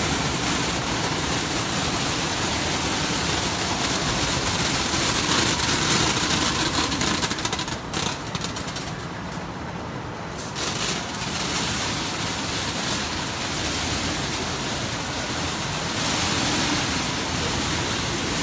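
Multi-stage optical colour sorter running while sorting dried croton leaves: a steady machine hum under a dense hiss, which thins briefly around the middle.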